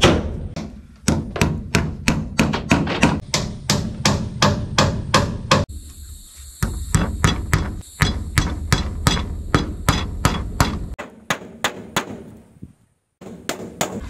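Rapid repeated hammer blows, about three or four a second, in runs broken by short pauses.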